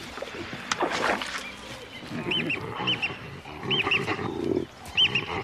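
Baboons squabbling: from about two seconds in, repeated short high screeches, mostly in pairs, over lower grunting calls.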